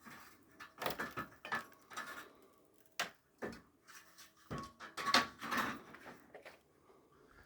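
Irregular knocks, clatters and scrapes from hand building work, with a few sharp knocks among them.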